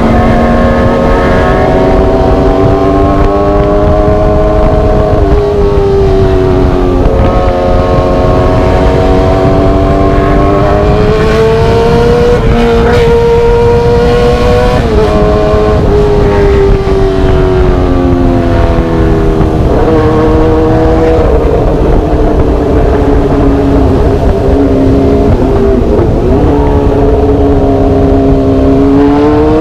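Motorcycle engine with a semi-open aftermarket exhaust under way, its pitch climbing and dropping several times as the throttle opens and closes through the gears.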